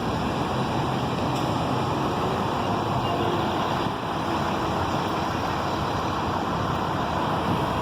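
Steady drone of trucks idling in a packed truck-stop lot.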